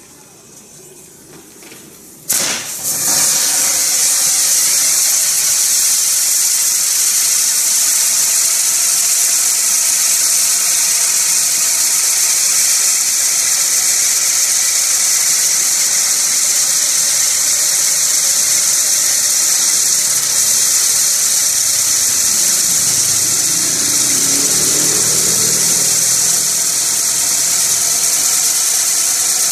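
Benwell Fireworks Blue Moon Wheel, a spinning firework wheel, catches about two seconds in. Its drivers then burn with a loud, steady, high rushing hiss as the wheel turns.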